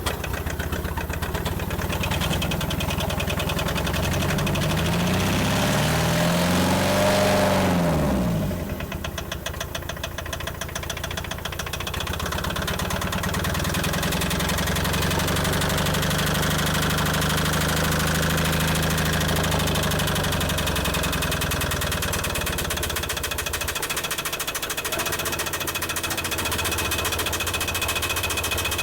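Tata Sierra's diesel engine running after its first start in seven years. It is revved up about five seconds in, drops back near eight seconds, then runs steadily.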